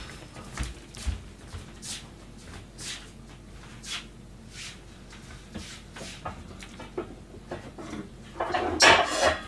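Kitchenware being handled while someone rummages for cookware: scattered light knocks and clicks, then a loud clattering rustle lasting about a second near the end.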